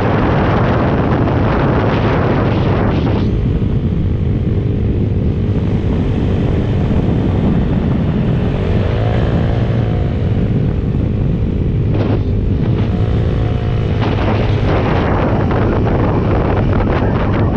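Small mini-bike engine running under way, its pitch wavering with the throttle, under heavy wind buffeting on the microphone; the wind rushes loudest in the first few seconds and again near the end.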